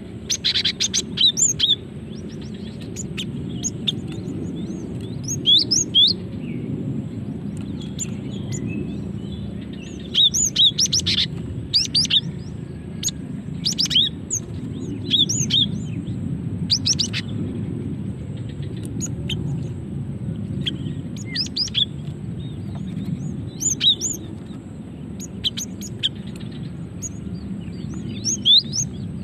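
Female cinereous tit (gelatik batu) calling for a male: short, high, rising chirps in quick clusters every second or two, over a steady low hum.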